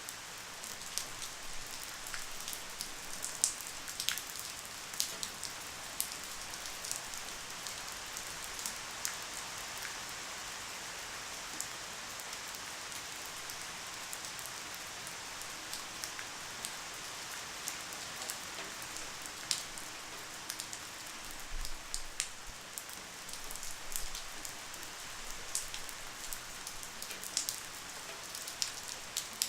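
Light rain falling steadily: an even hiss with scattered sharper drip ticks.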